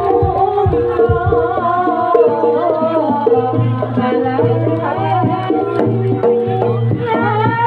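Live jaranan gamelan music: hand-drum strokes over a steady low gong tone, with stepped metallophone-like notes and a high wavering melody line on top, all playing without a break.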